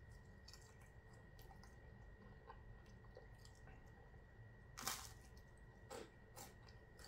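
Faint mouth sounds of a person eating a toasted cheese baguette (zapiekanka): small wet clicks, then a crunchy bite about five seconds in, followed by two softer crunches of chewing.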